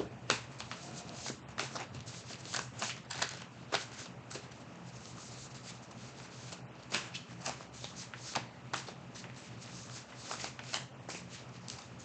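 A deck of tarot cards being shuffled and handled by hand: irregular snaps and slaps of cards, over a low steady hum.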